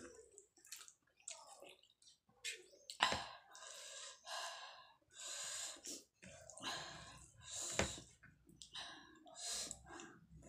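Bare fingers mixing rice with cauliflower curry on a plate: a run of short, irregular wet squishing sounds, with mouthfuls being chewed near the end.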